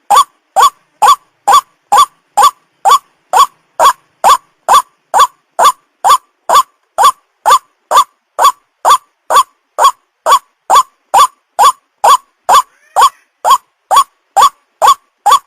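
White-breasted waterhen (ruak-ruak) call, a short upward-curving note repeated evenly about twice a second, played as a lure call for young waterhens.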